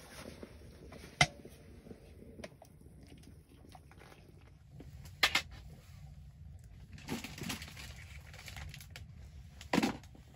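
Sharp metal clinks of a stovetop moka pot being handled and set down on a small wood stove: a single clink about a second in, a quick double clink around the middle, and a duller knock near the end.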